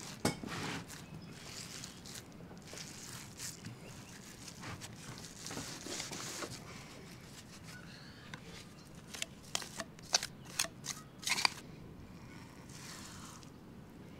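A metal soil block maker pressed and scraped through damp compost mix, giving soft crunching and scraping. Later comes a run of sharp metal clicks and taps as the loaded tool is handled and the blocks are pushed out onto the tray.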